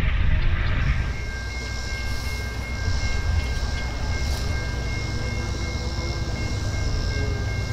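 Approaching freight train heard before it comes into view: a steady low rumble with two steady high-pitched tones over it. A louder rumble in the first second fades away.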